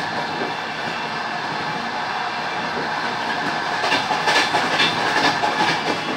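Passenger train wheels running steadily on the rails, with a quick run of sharp clacks over the track about four seconds in, lasting about two seconds.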